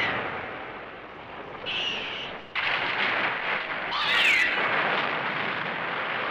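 Bemstar kaiju screeching: a short held high cry near two seconds in and a longer cry falling in pitch about four seconds in, over a steady noisy rumble.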